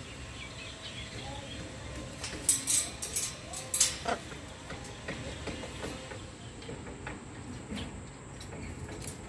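Sharp clicks and rattles of a blue-and-gold macaw's beak and claws gripping the wire mesh of its aviary as it climbs, bunched about two to four seconds in, with fainter ones later, over a low rumble.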